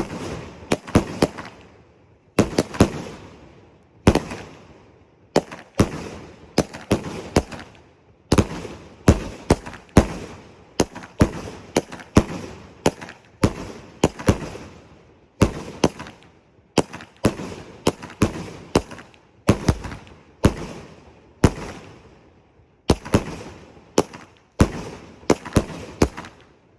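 A 200-gram 25-shot air-burst salute cake firing shot after shot: sharp bangs, often in close pairs of launch and burst, roughly one shot a second, each with a short echoing tail.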